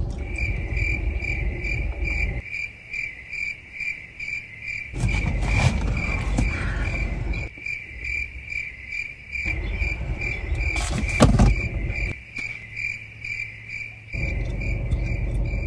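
Crickets chirping in a steady, even rhythm, about two or three chirps a second, one high note. A low rumbling noise starts and stops abruptly in several stretches underneath.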